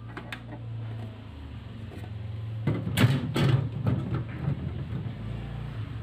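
Handling noise: a few sharp clicks, then a burst of clattering and rustling about three seconds in, over a low steady hum.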